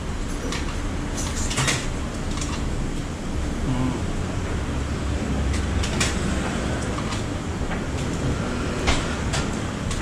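A steady low rumble with scattered sharp clicks and knocks from handling at a front-loading coin-operated washing machine.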